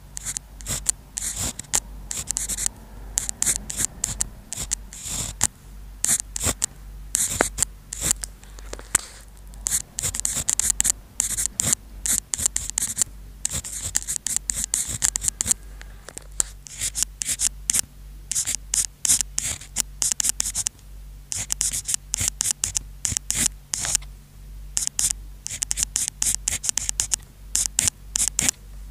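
Pen tip scratching across paper, close-miked, while Chinese characters are handwritten: quick irregular short strokes with brief pauses between characters.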